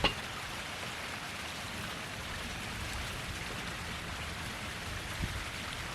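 Steady background hiss, with a soft low knock near the end.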